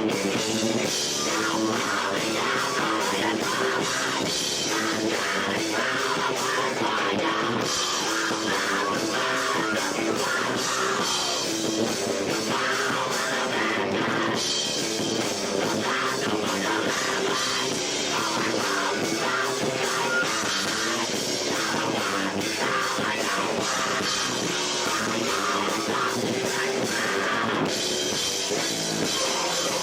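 Live rock band playing loud, with drum kit and guitar, picked up by a camera microphone that is overwhelmed by the room's echo, so the sound is muddy and distorted.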